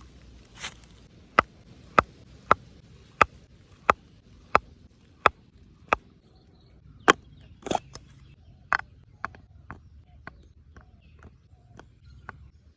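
A series of sharp chopping strikes, about eight evenly spaced over roughly five seconds, followed by a few louder, irregular knocks and then fainter clicks.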